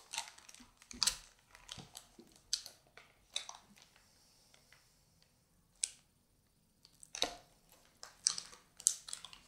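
Anti-static bag crinkling and clicking as a motherboard is shifted and turned on it by hand: scattered short crackles, with a quiet stretch in the middle.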